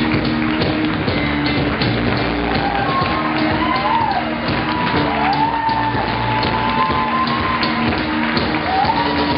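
A rock song playing, with a steady beat and a melody line that swoops up and down.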